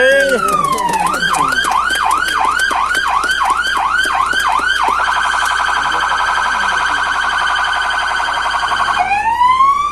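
Electronic siren of a Federal Highway Police patrol car cycling through its tones: a falling wail, then about ten quick rising-and-falling yelps, then a rapid warble for about four seconds, and near the end a wail rising again.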